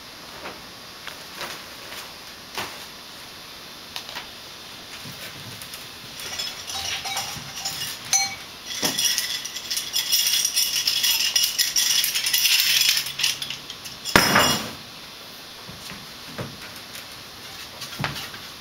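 Small metallic clinking and jingling, scattered at first and then dense and continuous for about seven seconds, with a short loud rush of noise about fourteen seconds in.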